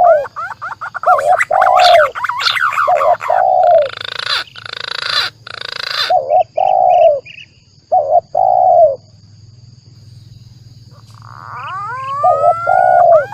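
Recorded pigeon lure calls: spotted dove (tekukur) coos, as a run of short, low hooting notes, mixed with green pigeon (punai) calls, rising whistled glides at the start and again near the end. A harsh rasping stretch comes in around the middle. The calls pause for a few seconds towards the end, leaving only a faint low hum.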